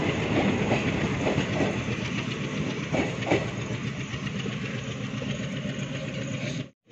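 Passenger train pulling out of the station past the platform, its coaches rolling by with the wheels knocking over the rail joints. A few louder knocks come about three seconds in, and the noise fades slowly as the train moves away.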